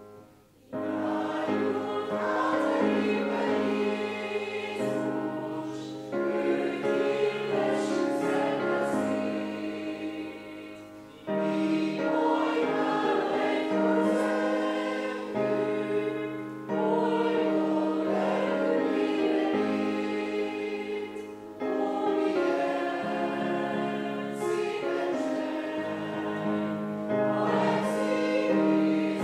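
Congregation singing the last verse of a Hungarian hymn, in sung lines with short breaks between them, starting about a second in.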